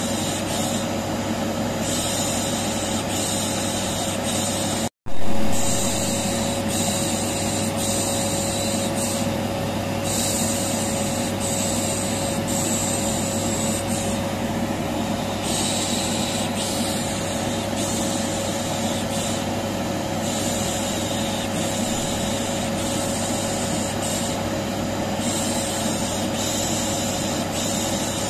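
Vacuum cleaner running steadily with a constant hum, with a repeated 'shh' shushing hiss over it, the white-noise mix used to soothe a colicky baby. The sound cuts out for an instant about five seconds in and comes back slightly louder for a moment.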